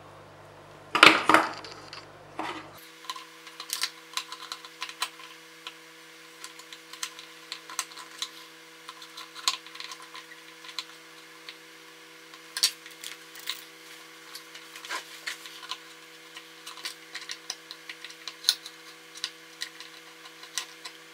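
Small screwdriver working the screw terminal of an L293D motor-driver shield to fasten the power-supply wires: scattered light metallic clicks and scrapes, with a louder clatter about a second in.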